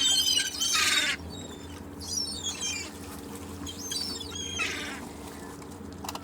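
Gulls calling in repeated squawks, loudest in the first second, with fainter calls around two seconds in and again near the four-to-five-second mark, over a steady low background noise of the shore.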